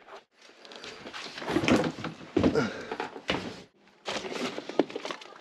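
Handling noises in a small room: rustling and knocks, then an interior door being moved about four seconds in.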